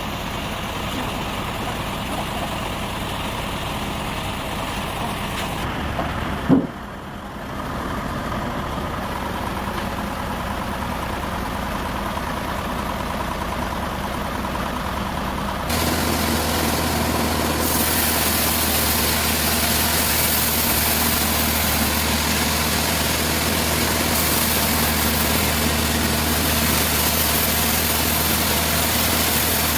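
An engine running steadily. A little past the middle it steps up to a louder, hissier running sound.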